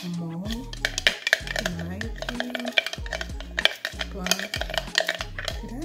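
A spoon clinking repeatedly against a bowl as something is stirred, over background music with a bass line.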